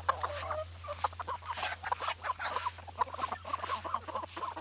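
Flock of chickens clucking, many short overlapping calls one after another.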